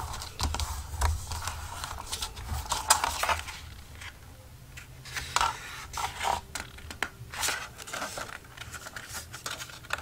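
Bone folder scraping along folded paper in short, irregular strokes, burnishing the creases along score lines, with paper rustling and light taps against the plastic scoring board.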